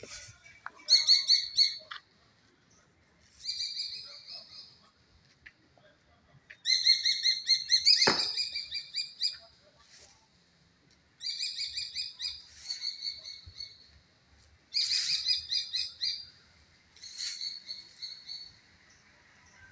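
A bird singing in about six short phrases of rapid, evenly repeated chirps, each phrase one to two and a half seconds long with pauses between. A few sharp clicks, the loudest about eight seconds in.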